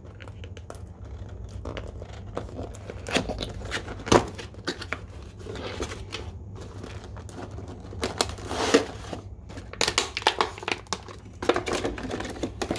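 A cardboard box being opened by hand and a styrofoam packing insert lifted out: irregular rustling and scraping, with scattered light knocks and clicks.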